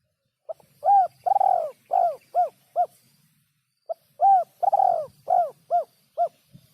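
Spotted dove (tekukur) cooing: two phrases, each a short note followed by five rhythmic coos, the later coos in each phrase shorter and quicker.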